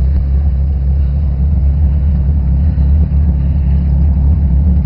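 Jeep Grand Cherokee engine running with a steady low rumble while the tractor-tired Jeep is bogged down, stuck in deep muddy water.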